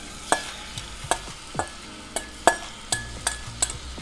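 A metal spoon scrapes and knocks kimchi and onion out of a stainless steel mixing bowl into a thin aluminium pot. There are repeated clinks about twice a second, several leaving the bowl ringing briefly, over the hiss of the kimchi starting to fry in hot sesame oil.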